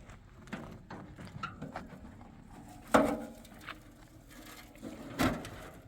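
A few scattered knocks and clatters, the loudest a sharp knock about three seconds in, with another near the end.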